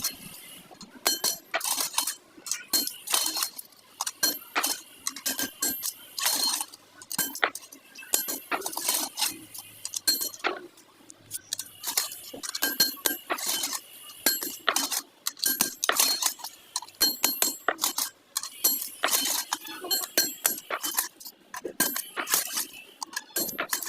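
Irregular metallic clinking and tapping during clutch plate repair, several strikes a second at times, many of them leaving a brief high ring: metal tools and parts knocking together as they are worked on.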